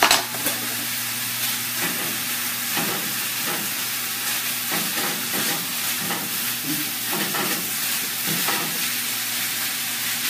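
Sausage sizzling in a frying pan on a gas stove while a spatula stirs and scrapes it around in irregular strokes. There is one sharp knock of the utensil against the pan at the start.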